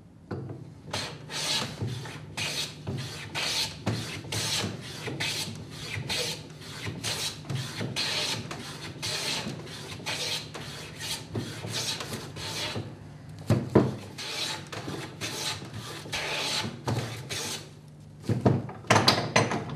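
Metal bench plane shaving the edge of a hardwood board: rapid short scraping strokes, about two a second, taking the edge down toward a marking gauge line. A few sharp knocks near the end.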